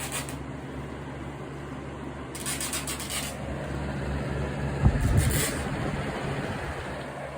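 Old Lasko box fan running steadily: a motor hum under the rush of air. A brief hissy burst of noise comes about two and a half seconds in, and a louder low bump with hiss about five seconds in.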